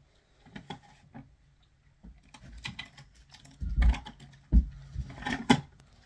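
Irregular clicks and knocks of small makeup items and containers being handled, picked up and set down, with a few heavier thumps about four and five seconds in.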